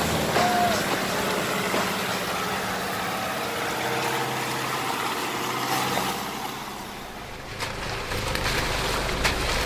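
Four-wheel-drive vehicle engine running steadily, with a deeper low rumble coming in near the end.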